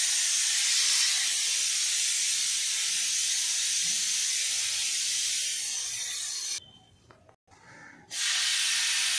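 Compressed-air blow gun hissing in a steady blast as it blows dust off a sliding panel saw's table. The blast stops about two-thirds of the way through and starts again about a second and a half later.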